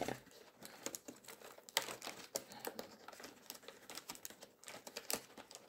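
Faint, irregular clicks, taps and crinkles of a cardboard advent calendar door and a trading-card pack wrapper being handled.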